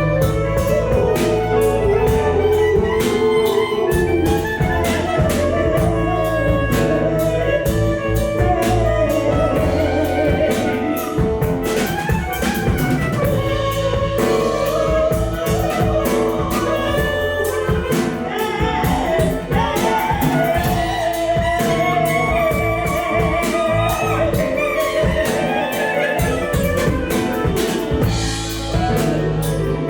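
A small band playing continuously: drum kit and guitar under a gliding, ornamented melodic lead line, from a lineup of voice, fretless guitar, violin and clarinet.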